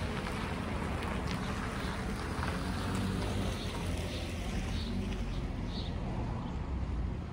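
A Mazda CX-5 SUV pulling away across a paved lot: a steady low rumble of engine and tyres, mixed with wind noise on the microphone.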